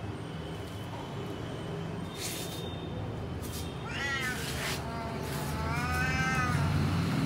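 Domestic cat meowing twice: a short meow about four seconds in, then a longer one around six seconds in.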